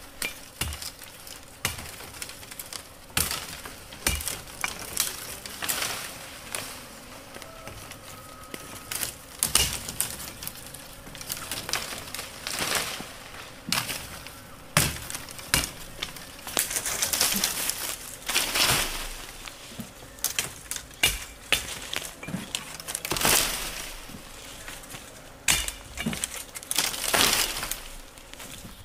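Dry cassava stalks cracking and snapping irregularly, with rustling of brush between the snaps.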